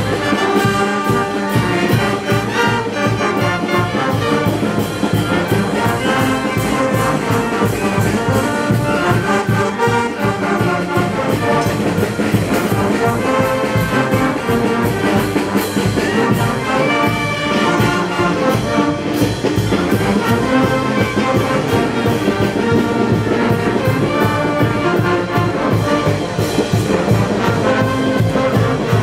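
A band with brass instruments playing music with a steady beat.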